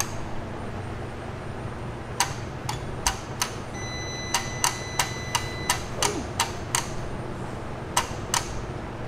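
Electronic drive-by-wire throttle body on a Toyota 3UZ-FE V8, powered by the ECU with the engine not running, clicking sharply as it is driven open and shut: several clicks a second in uneven groups. A steady high whine lasts about two seconds near the middle. The throttle is responding, the sign that the new ECU wiring to it works.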